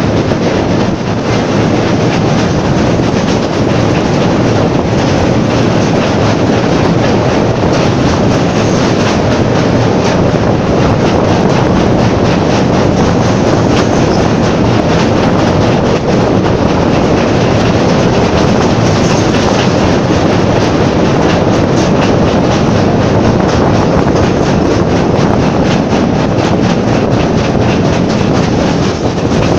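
A heritage train of vintage carriages running at speed, a steady loud rush of wheels on rails with clickety-clack, while crossing a steel bridge. Wind rushes over the microphone held out of the carriage window.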